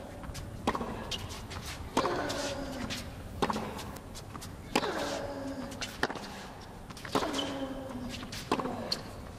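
Tennis rally on a hard court: about seven racket strikes on the ball, one roughly every second and a half. Each strike comes with a player's short grunt that falls in pitch.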